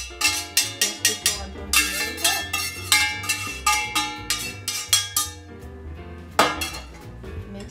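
A spoon clinking against a mixing bowl about four times a second while stirring pancake batter, stopping about five seconds in, with one more knock a second later. Background music runs underneath.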